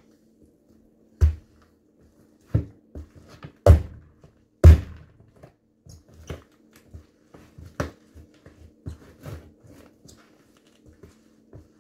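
Sneakers stomping on a smashed pumpkin on a wooden floor: irregular thuds and crunches of rind and pulp breaking underfoot, the heaviest a little over a second in and around four to five seconds in, lighter steps after.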